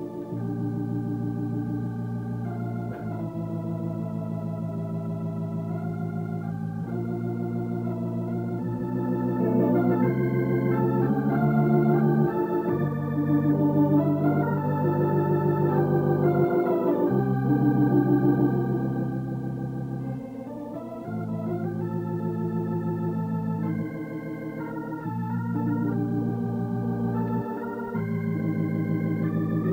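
Organ music: held chords that change every second or few, with a melody moving above them.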